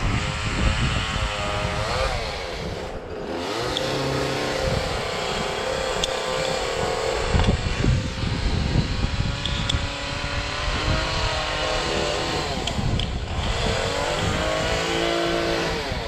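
A small engine running and revving up and down in sweeps, with wind buffeting the microphone.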